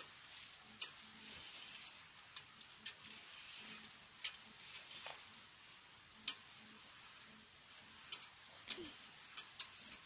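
Low berry shrubs rustling and crackling as lingonberries are picked by hand: irregular sharp clicks over a faint steady hiss.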